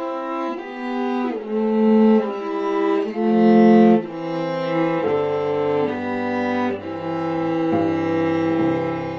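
Solo cello played with the bow: a slow melodic line of held notes, each lasting about half a second to a second. About halfway through it moves down into the low register, with two notes sounding at once.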